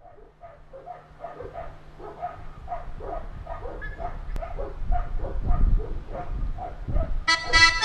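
An animal calling over and over, about three short calls a second, growing louder, over a low rumbling noise. Accordion music comes in just before the end.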